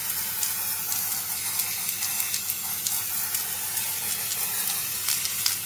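Aerosol can of Dr. Oetker silver edible shimmer spray hissing steadily as it is sprayed in one long continuous burst over a cake.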